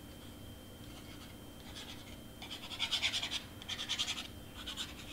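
Tip of a glue bottle scratching across cardstock and vellum as glue is laid along the paper, in short scratchy bursts from about two seconds in, loudest around the third and fourth second.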